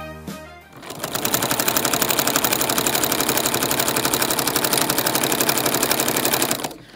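Domestic sewing machine stitching through fabric at a steady speed: a rapid, even clatter of the needle, starting about a second in and stopping just before the end.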